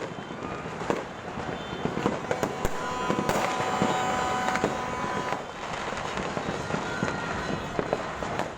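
New Year's fireworks and firecrackers going off all around: many sharp bangs over steady crackling. A steady held tone sounds for about two seconds midway.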